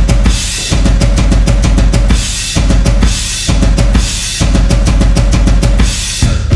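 Loud drum-heavy hip hop dance-routine music: a deep bass drum under rapid snare-like hits, with a cymbal-like burst of noise roughly every two seconds.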